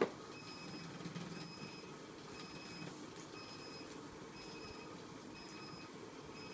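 A sharp click, then a Frolicat Dart Duo automatic laser cat toy running: its small motors give short, thin whines about once a second as they swing the laser dot around.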